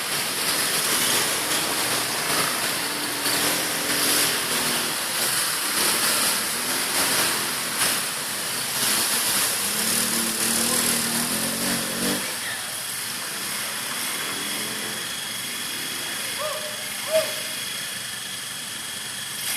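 ATV engine running, its pitch rising and falling with the throttle, fading out after about twelve seconds over a steady hiss. A brief sharp sound comes near the end.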